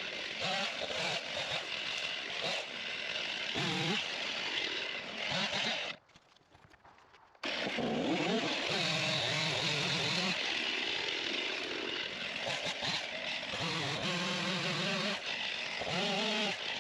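Chainsaw running and revving as it cuts stumps and brush, its pitch rising and falling with the throttle. The sound cuts out abruptly to near silence for about a second and a half partway through, then resumes.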